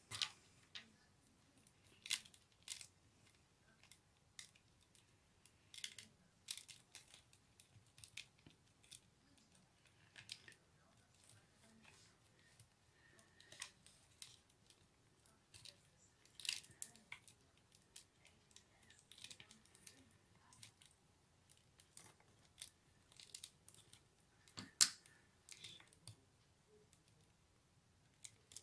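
Faint, scattered clicks and crackles of rolled paper tubes being bent and tucked by hand through the weave of a paper basket, with one louder click near the end.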